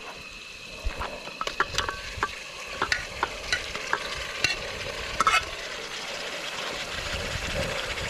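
Chicken curry sizzling in a pan as a spoon stirs it, with a run of sharp clinks and scrapes against the pan in the first half.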